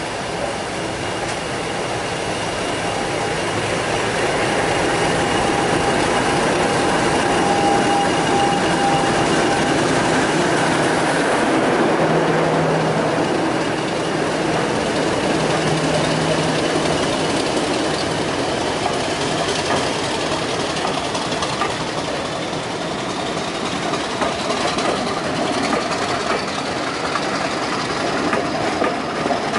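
Class 50 diesel locomotive 50033, with its English Electric 16-cylinder engine, passing close by at the head of a passenger train, its sound peaking about eight seconds in. The coaches then roll past with the clickety-clack of wheels over rail joints, with short sharp clicks near the end.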